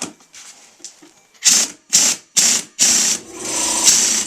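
Pneumatic impact wrench turning the screw of a tire bead breaker: four short trigger bursts about half a second apart, then a longer steady run from about three seconds in, forcing the tire's bead off the rim.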